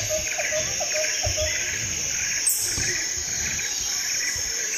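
Jungle ambience: crickets trilling steadily while a bird calls in quick repeated chirps, about three a second, which stop about a second and a half in. Soft low thuds sound underneath.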